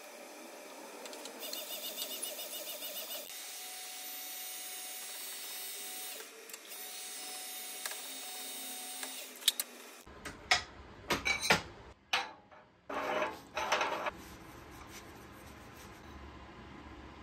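Motor-driven bead roller running steadily as an aluminium tube turns through its rolls, pressing a single wide stiffening bead into it. After about ten seconds it gives way to a few sharp knocks and rubbing as the formed tube is handled on a steel bench.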